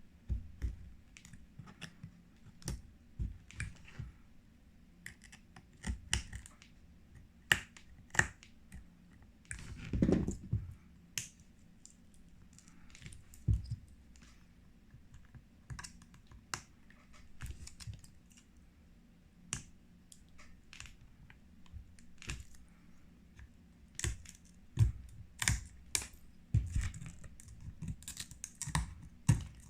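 Irregular sharp clicks and taps of hand tools and glass pieces as cracked phone back glass, loosened by laser, is picked and pried off, with a longer crunching scrape about ten seconds in.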